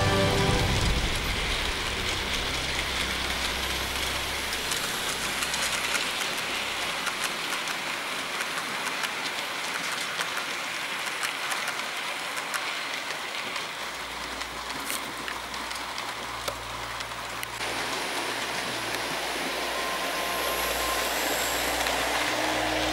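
Model railway trains running past on the track: a steady rattling hiss of wheels with many small clicks, and a low motor hum from about two-thirds in.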